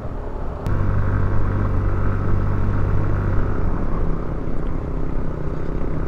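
Yamaha scooter's engine running at a steady cruise with road and wind rumble, heard from the rider's seat. It gets louder about a second in, then eases a little past the halfway point.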